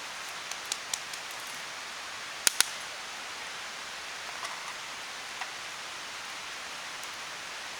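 Wood fire crackling in a fire pit: a steady hiss with scattered sharp pops, two loud ones close together about two and a half seconds in.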